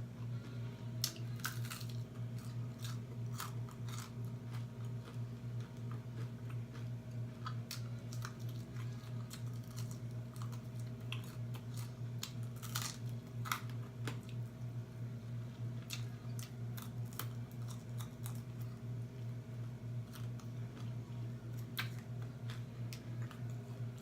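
Person chewing and biting food close to the microphone, with scattered crunches and mouth clicks over a steady low hum.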